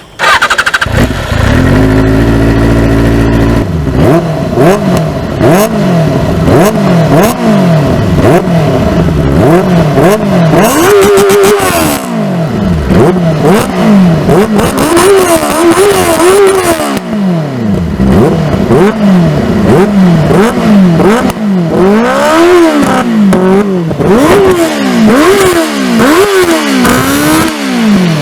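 Benelli 600i's inline four-cylinder engine blipped through its exhaust again and again, each rev climbing and falling back, about once a second. It comes in loud all at once and holds a steady note for a few seconds before the revving starts.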